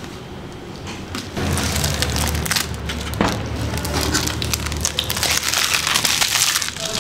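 Plastic and paper packaging being peeled and crumpled off a mirror's frame: dense crackling and crinkling, louder from about a second and a half in.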